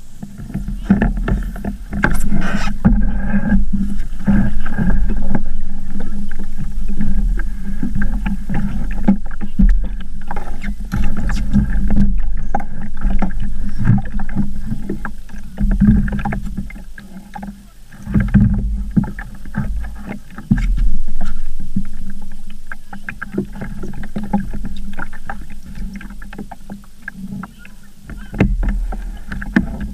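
Small Sabot sailing dinghy rocking at the shore: water slapping against the hull, with irregular knocks and clunks as the sailor shifts about the boat and handles its gear.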